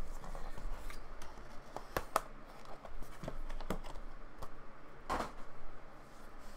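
Hands handling trading card boxes and cased cards on a table: a few light clicks and taps, and a short rustle of packaging about five seconds in.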